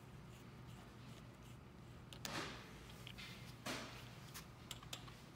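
Hands working a screwdriver and handling parts on the plastic toner dispenser assembly of a Xerox copier while a toner motor's screws come out. Two short scraping rustles come a little over two seconds in and about three and a half seconds in, followed by a few light clicks.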